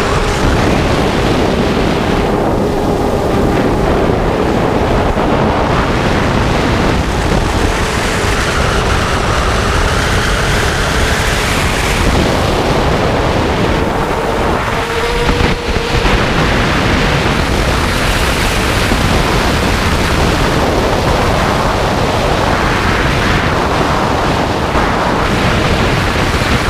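Brushless motors and propellers of a Blackout Mini H 4S FPV quadcopter, heard through its onboard camera: a loud whirring, with wind rushing over the microphone. The motor pitch rises and falls as the throttle changes, with a brief drop about fifteen seconds in.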